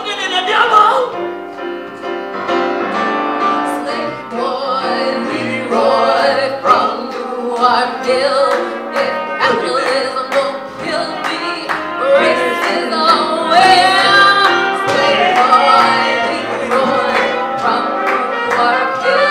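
Live band music with singing: voices carry wavering, held sung lines over instruments, among them upright bass, saxophone and keyboard.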